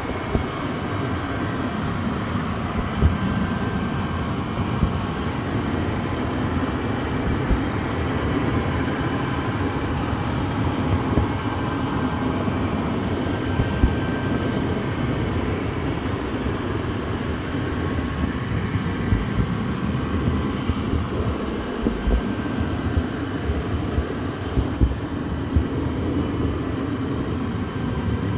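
A moving train's steady rumble, with irregular low thumps breaking through it every few seconds.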